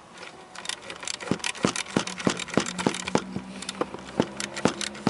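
A run of sharp clicks or knocks, about three a second, starting about a second in, over a faint steady low hum.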